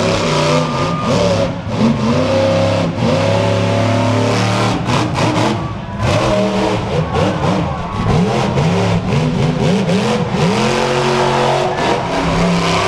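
Monster truck engine revving hard, its pitch climbing and dropping again and again as the truck accelerates and backs off.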